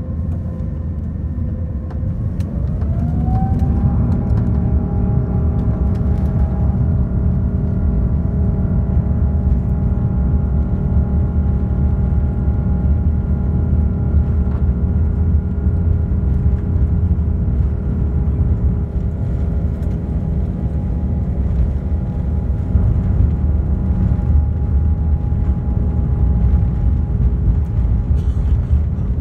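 Airbus A350's twin Rolls-Royce Trent XWB turbofans, heard from inside the cabin, spooling up to takeoff thrust. A whine rises in pitch a couple of seconds in and then holds steady over the heavy low rumble of the takeoff roll, which grows louder as the power comes up.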